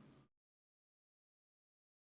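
Near silence: the last faint tail of a fading sound effect dies away in the first moment, then dead digital silence between effects.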